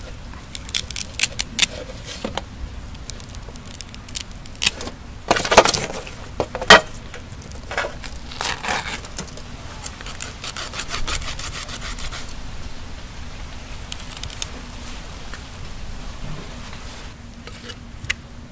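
A knife scraping and knocking on a fish against a wooden cutting board while the fish is cleaned. The strokes are irregular and busiest in the first half, with two loud knocks about six and seven seconds in.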